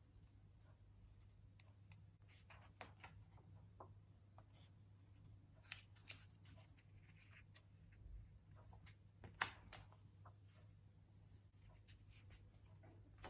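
Faint rustling and soft snaps of heavy glossy photo-book pages being turned by hand, the sharpest snap about nine and a half seconds in, over a low steady hum.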